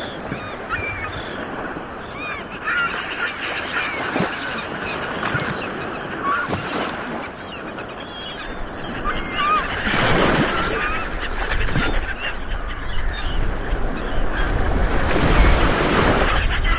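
Ocean waves rolling onto a shore, with swells that grow loud about ten seconds in and again near the end. Many birds call over the surf in short, repeated cries.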